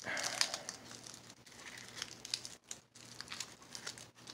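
Aluminium foil crinkling and crackling in the hands as a small foil-wrapped package is unfolded, in irregular bursts, loudest at the start.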